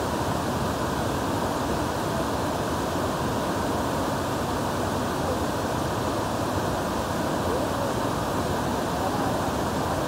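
Steady rushing of a large tiered waterfall, water cascading down many rock ledges into a pool. The sound is an even, unbroken wash that does not change.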